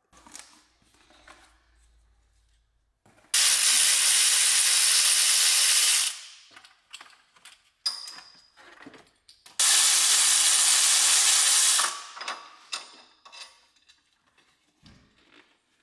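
Power ratchet run in two bursts of about two and a half seconds each, a steady hissing whirr that starts and stops sharply, on bolts at the front of the engine. Small metallic clicks and knocks of tools come between the bursts.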